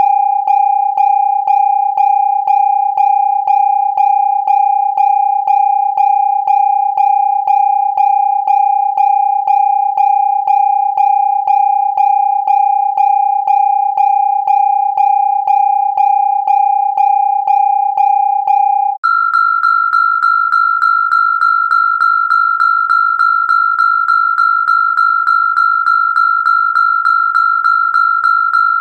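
Electronic alarm: a steady, pitched tone pulsing evenly about twice a second. About two-thirds of the way through it breaks off for an instant and a higher-pitched alarm tone takes over with the same pulsing.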